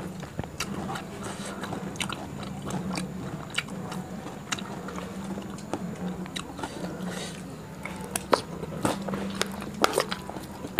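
Close-miked chewing and crunching of rujak, a pineapple and guava fruit salad mixed with fried peanuts, heard as irregular sharp crunches and clicks. A steady low hum runs underneath.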